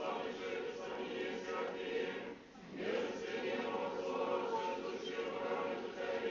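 Choir singing Orthodox liturgical chant in sustained phrases, with a short break about two and a half seconds in before the singing resumes.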